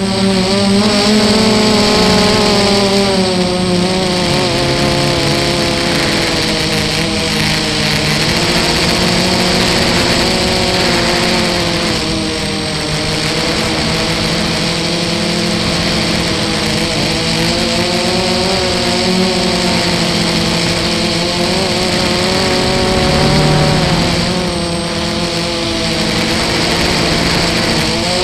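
Armattan FPV quadcopter's electric motors and propellers whining in flight, heard from a camera on the quad, with the pitch rising and falling as the throttle changes over a steady rushing hiss. The level dips briefly twice, about a third of the way in and again near the end.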